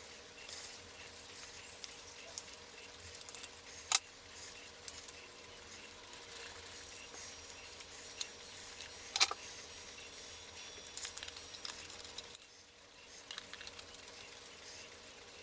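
Light metallic clicks and clinks from handling cuckoo clock parts and small tools, scattered and irregular, with two sharper clicks about 4 and 9 seconds in, over a faint steady hum.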